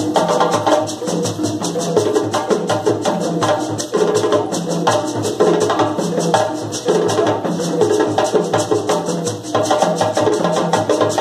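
Djembe-style hand drums played together by several drummers, a fast, driving ensemble rhythm of sharp slaps and deeper open tones accompanying African dance.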